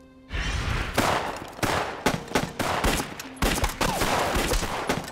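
Film battle-scene gunfire: many overlapping shots in a dense fusillade that starts abruptly about a third of a second in and keeps going without a break.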